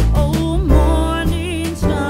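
Background music: a song with a singing voice over bass and drums.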